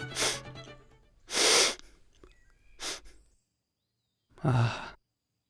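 A man sniffing and breathing in through the nose several times, catching a smell of food. The longest and loudest sniff comes about a second and a half in, and a short breath with a little voice in it follows near the end.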